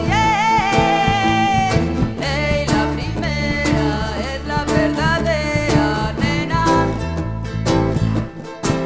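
Live band playing a song with guitar and a repeating bass line. A held, wavering melody note opens the passage, and the music drops briefly just before the end.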